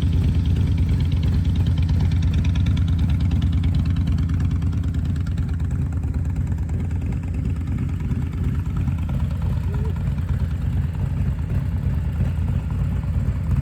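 Harley-Davidson Road Glide's V-twin engine running steadily, a loud low pulsing exhaust note with no change in pace.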